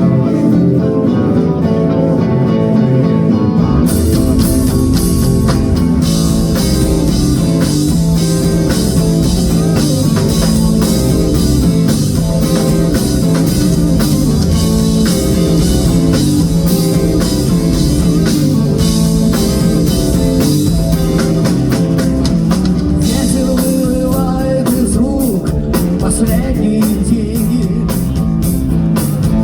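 Live rock band playing the song's instrumental intro, with guitars and bass. The drum kit and cymbals come in about four seconds in.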